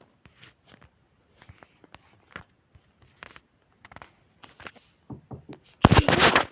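Footsteps crunching in snow: scattered, irregular crunches. About six seconds in, a sudden loud burst of noise.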